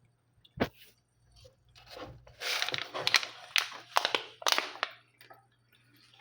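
A person biting and chewing crunchy food: a sharp click, then loud crunching in several spells, fading out near the end.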